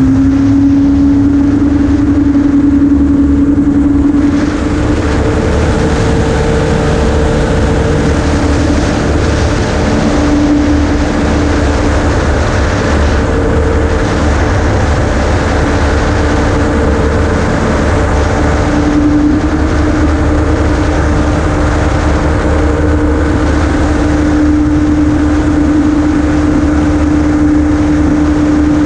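Amphibious gyroplane in flight, heard from a camera mounted on the aircraft: its engine and propeller run in a loud, steady drone, the engine note shifting slightly about four seconds in.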